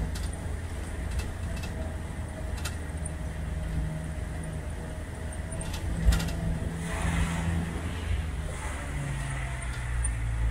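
Humvee engine running as the open-top vehicle climbs a steep lane, heard from the open back, with road noise and occasional sharp clicks of rattling.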